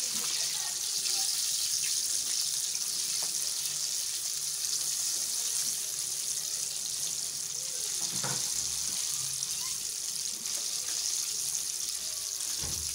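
Chicken pieces deep-frying in hot oil: a steady, high hiss of bubbling, with a couple of brief knocks.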